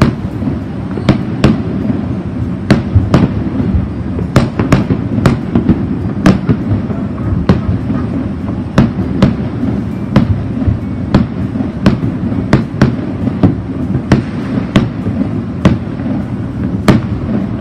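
Many fireworks going off at once: a continuous rumble of far-off bangs, with sharp cracks and pops at irregular intervals, somewhat under two a second.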